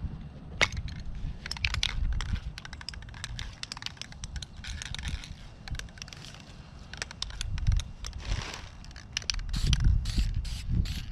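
Can of high-heat spray paint being handled: irregular clicks and light scraping, a couple of short hisses, then a regular rattling about three times a second near the end, as the can is shaken.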